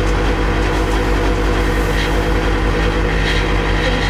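An engine idling, a steady low drone that does not change.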